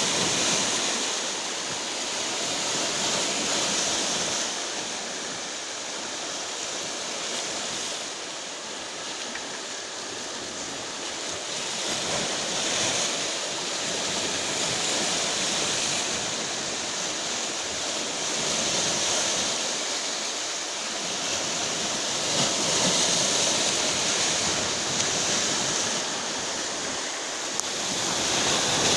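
Rough Black Sea surf pounding the shore in a storm: a continuous rush of breaking waves that swells and eases every few seconds.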